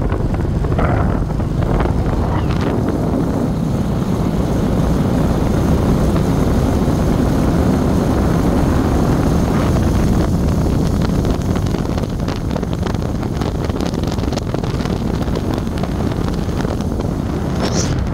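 Wind rushing over the microphone and road noise from a moving vehicle, a steady low rush.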